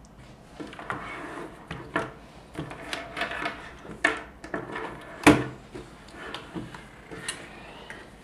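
Keyboard packaging being handled and pulled out of the box: irregular rustling and rubbing with scattered knocks, the sharpest about five seconds in.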